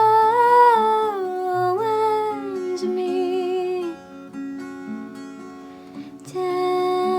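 A woman singing long held notes with vibrato that glide downward, over plucked acoustic guitar. About four seconds in the voice drops out and the guitar plays softly alone, then the voice comes back with another held note near the end.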